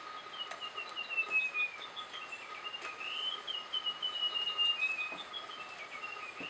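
Russet-crowned Warbler singing: phrases of quick, clear notes that fall in pitch, repeated with short pauses between.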